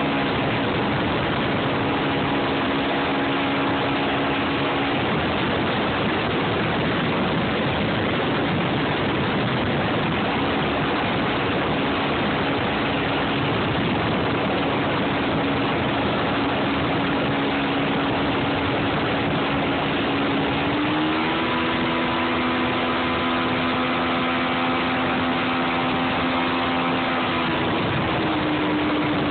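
Mercury 225 outboard motor running at speed under a steady rush of wind and water. The engine's tone steps up about two-thirds of the way through and eases back near the end.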